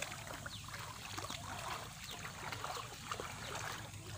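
Shallow water sloshing and trickling as a person wades and feels about with his hands in muddy water, many small irregular splashes over a steady low hum.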